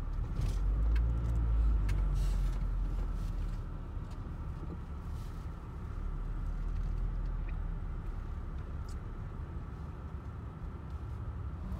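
Low rumble of a vehicle's engine and tyres, heard from inside the cab as it rolls slowly across a ferry's car deck. The rumble is a little louder in the first few seconds, and there are a few faint clicks.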